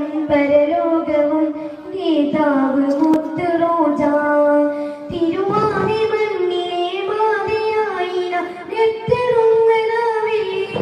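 A boy singing a Malayalam devotional song in praise of the Prophet into a microphone, with long held, ornamented notes. The melody steps up to a higher line about halfway through.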